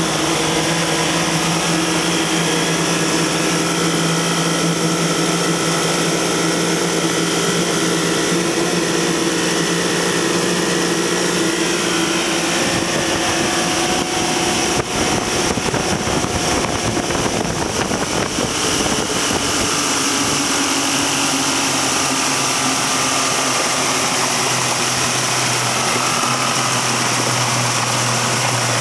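1985 Johnson 70 hp two-stroke outboard running under way, with water rushing and spraying out of the tunnel hull around the lower unit. The steady engine note turns rough and noisy for several seconds past the middle, then settles at a lower pitch near the end.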